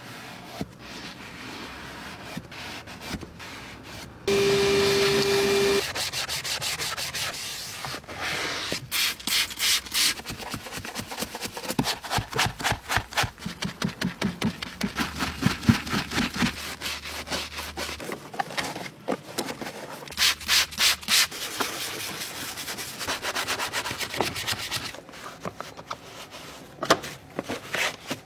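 Car interior being scrubbed by hand: a brush and pad working over leather upholstery, a foam-covered gear knob and plastic seat trim in quick back-and-forth strokes, about three a second at times. About four seconds in, a loud steady hum sounds for a second and a half.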